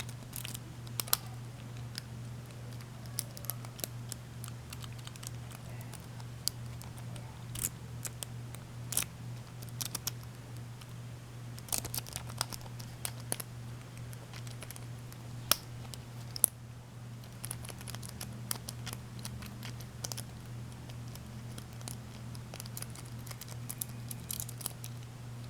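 Lock picking: a city rake rocked and scraped in the pin-tumbler keyway of a laminated padlock, giving irregular small metallic clicks and scratches as it slides over the pins. A steady low hum runs underneath.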